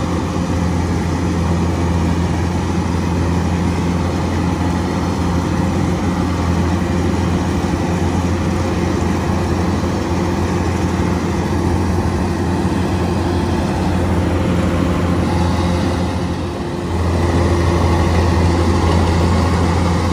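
Diesel engine of a rice combine harvester running steadily with a low hum. About 16 seconds in it dips briefly, then comes back a little louder.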